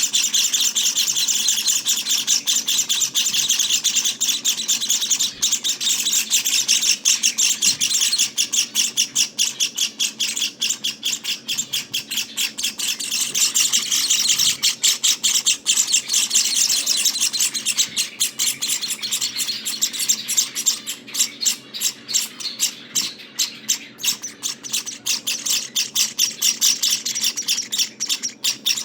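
Java finch nestlings chirping without pause: a rapid, high-pitched stream of many chirps a second, the begging calls of young finches in the nest.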